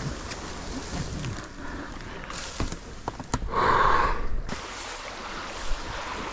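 Water sloshing and splashing around a small boat drifting down a creek, with a few sharp knocks and a louder rush of splashing about three and a half seconds in.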